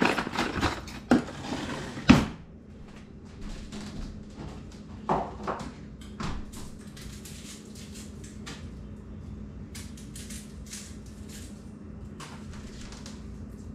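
Kitchen handling noise: a quick run of clicks and knocks of things being picked up and set down, with the loudest knock about two seconds in. Scattered fainter clicks follow over a low steady hum.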